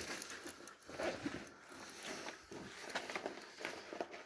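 Faint, irregular scuffs and rustles of people shifting about: footsteps and clothing, over quiet room tone.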